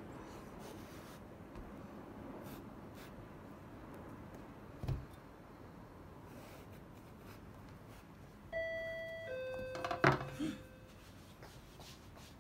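A knife cutting into the thick rind of a banpeiyu pomelo on a wooden cutting board, with faint scraping clicks and a thump about five seconds in. About two-thirds of the way through, a two-tone doorbell chime sounds, a higher tone then a lower one, with a sharp knock during the second tone.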